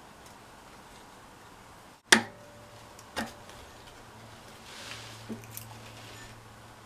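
Sharp metal-on-metal clicks as a camshaft cap is set down and seated over the camshaft on a Subaru 2.5L cylinder head. The loudest comes about two seconds in, a softer one a second later, and a faint tick near the end.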